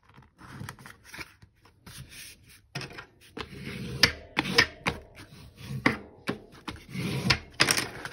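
Heavy mixed-media paper being folded and creased by hand against a tabletop: rustling and rubbing, broken by several sharp taps, the loudest about four seconds in.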